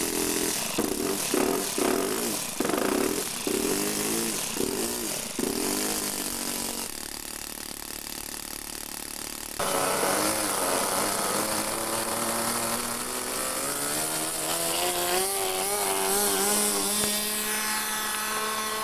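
Super Tigre .45 two-stroke glow engine on a model airplane, revved up and down in repeated throttle bursts. About ten seconds in it switches to a steady high-speed run, its pitch slowly rising and wavering as the plane takes off and flies.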